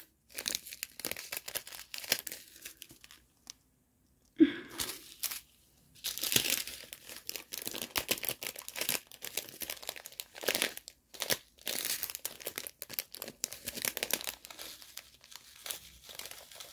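Small plastic zip bags of diamond painting drills crinkling as they are handled, in irregular crackly bursts with a short pause about three seconds in.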